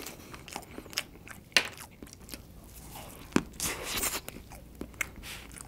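A person chewing a mouthful of pink Loopy-character cake close to the microphone, with scattered small crunches and clicks, busiest about three and a half to four seconds in.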